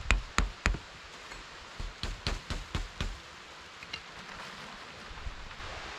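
Sticks knocking against each other as they are handled: three sharp wooden knocks in the first second, then a quicker run of about six knocks between two and three seconds in.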